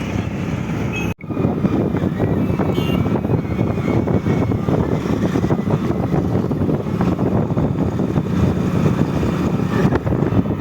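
Steady noise of riding in a moving vehicle, with wind on the microphone; the sound cuts out briefly about a second in.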